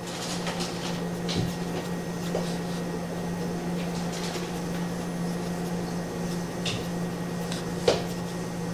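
Pen scratching on paper in short irregular strokes as words are handwritten, over a steady low hum; one sharper scratch or tap near the end.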